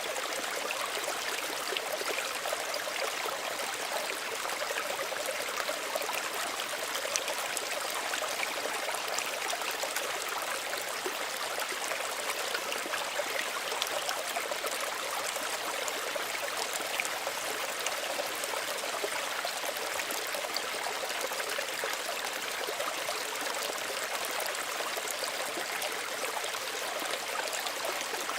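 Small stream running steadily, with a gentle splashing and trickling of water over stones.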